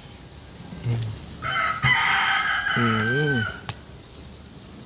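A rooster crows once, a call of about two seconds that starts about a second and a half in.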